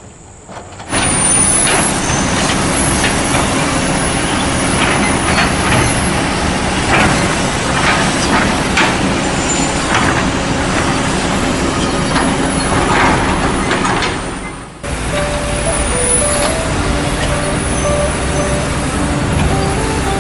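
Heavy construction machinery running loudly, with repeated metallic knocks and clanks. About 15 seconds in, it cuts to background music over a steady machine drone.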